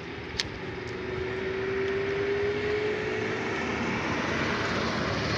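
Road and wind noise of a moving vehicle at night, heard from on board and growing louder, with a steady engine hum that rises slowly in pitch. A single sharp click comes about half a second in.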